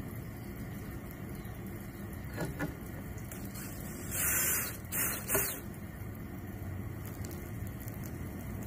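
DeWalt cordless drill driving a screw through the side of a skylight frame into the roof curb: one run of about half a second about four seconds in, then two short trigger bursts to seat the screw. A steady low rumble runs underneath.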